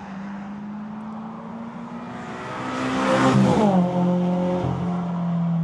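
A car passing close by: its engine and tyre noise swell about three seconds in, then drop in pitch as it goes past, over a steady engine hum.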